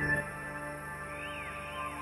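Soft instrumental background music: held tones with a melody of gliding notes that rise and fall.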